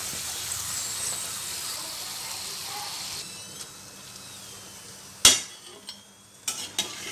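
Hot oil sizzling in a wok as crisp, battered potato peels are lifted out with a perforated steel skimmer; the sizzle fades about three seconds in. About five seconds in comes one sharp metallic clink of the skimmer against the plate, followed by a few lighter clinks near the end.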